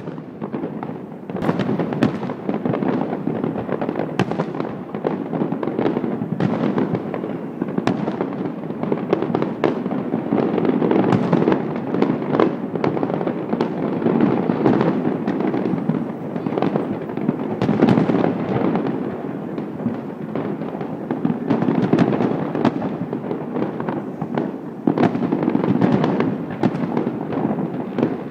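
Fireworks display going off: many bangs in quick succession, overlapping into a continuous rumble with no letup.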